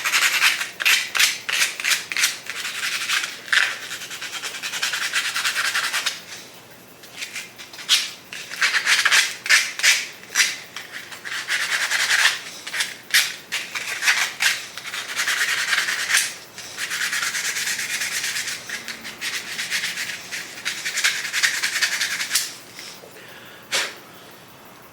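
Sandpaper rubbed by hand over a turkey wing bone in quick back-and-forth strokes, lightly smoothing and rounding off its edges, with a couple of short pauses.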